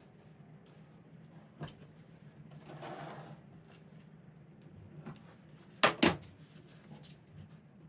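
Handling knocks and clicks while working on the drain: a single sharp knock, a soft rustle, then two loud clicks close together about six seconds in, over a low steady hum.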